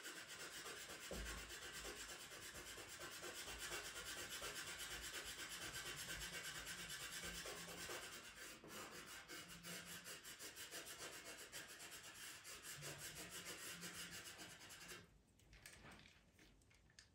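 Black pastel pencil scratching over textured pastel mat paper in rapid back-and-forth shading strokes, faint and steady. The strokes stop near the end.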